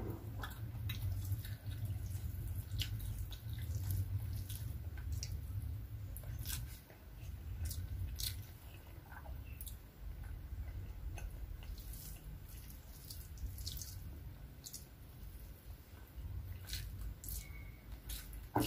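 Close-up eating sounds of a person eating rice and egg curry by hand: scattered wet mouth clicks and smacks from chewing, with soft squishing as her fingers mix the rice on the plate, over a steady low hum.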